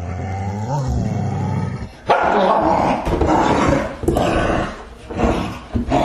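Dog groaning: a low, drawn-out groan with a brief rise and fall in pitch, then from about two seconds in a louder, rougher run of growling groans in three or four separate breaths.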